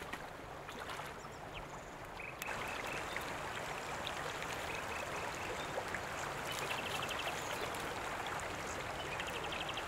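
Shallow river running over stones, a steady rush of water that gets a little louder about two and a half seconds in. A few short, high chirping trills come through twice.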